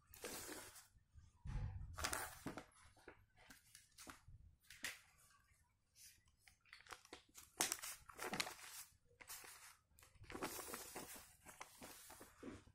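Sheets of a printed paper rustling and crinkling in irregular bursts as they are handled and the pages are turned.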